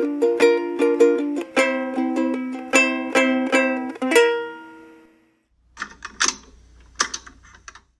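Plucked-string music with quick repeated notes, ending on a chord that fades out about four seconds in. After a short gap, a few sharp clicks sound over a low hum.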